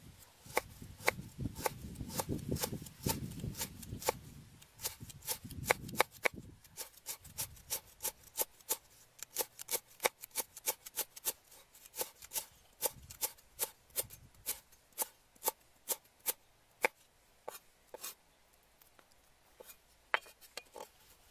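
Cleaver slicing lemongrass on a thick round wooden chopping block: a steady run of sharp knocks, about three a second, thinning out near the end.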